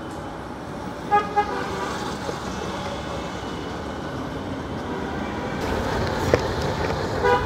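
Vehicle horn tooting twice in quick short blasts about a second in, and once more briefly near the end, over steady street traffic noise. The traffic and engine noise grows louder in the last couple of seconds as the motorcycle moves off.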